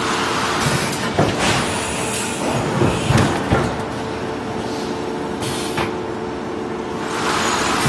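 Plastic egg-carton thermoforming machine running: a steady hum, a hiss of air near the start and again near the end, and a few knocks from its moving parts in the middle.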